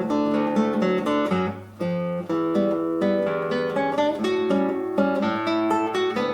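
Solo classical guitar played fingerstyle: a steady, flowing run of plucked notes over a bass line, with a brief dip in loudness about a second and a half in before the playing picks up again.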